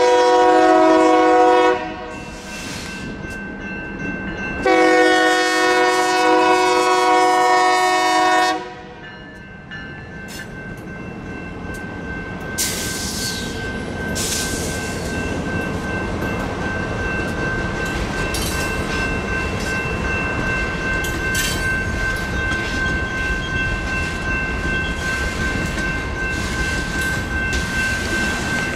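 A Union Pacific freight locomotive's multi-chime horn sounds a blast of about two seconds, then a longer one of about four seconds, at the grade crossing. The freight cars then roll through the crossing with a steady rumble of wheels on rail and a few clanks, while the crossing's electronic bell rings without a break.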